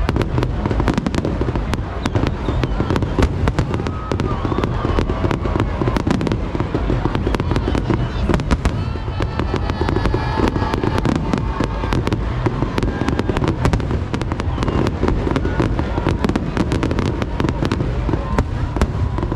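Fireworks barrage: a dense, rapid string of bangs and crackles over a continuous low rumble.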